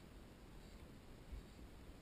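Near silence: a faint low rumble, with one soft low thump about 1.3 seconds in.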